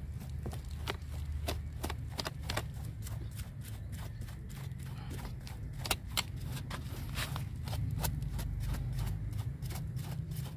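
A stiff hand brush scrubbing the bark at the base of a mai chiếu thủy (Wrightia religiosa) bonsai trunk to clear off moss and mould. It makes a quick, irregular run of short scratchy strokes, several a second.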